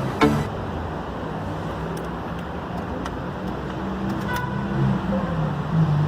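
A motor running steadily in the background, a low wavering hum, with a few faint light clicks about two, three and four seconds in.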